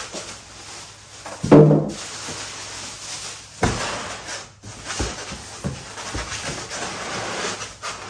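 Cardboard box and its plastic packing straps rubbing and rustling as they are handled and cut, with a few sharp clicks. A brief low hum about a second and a half in is the loudest sound.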